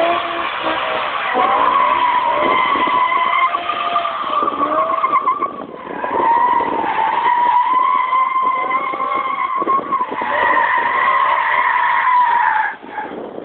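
Car tyres squealing almost without a break as a sedan spins donuts under wheelspin, a high wavering squeal over engine revs that rise and fall. It dips briefly about six seconds in and cuts off shortly before the end.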